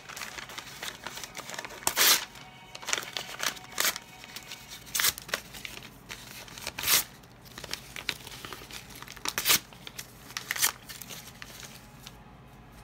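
A sheet of paper being torn up by hand: a series of short, sharp rips and crinkles spread over about ten seconds, fading out near the end.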